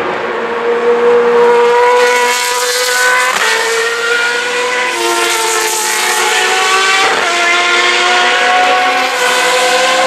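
Single-seater racing car engines running at high revs as the cars accelerate along the track, the pitch climbing in each gear and dropping at upshifts about three and seven seconds in.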